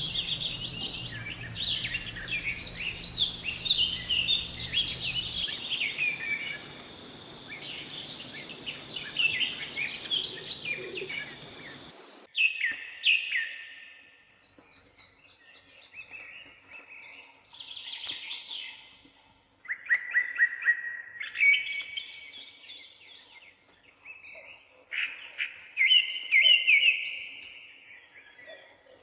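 Birds chirping and singing in a dense, overlapping chorus. About twelve seconds in, it cuts abruptly to clearer, separate song phrases with short pauses between them.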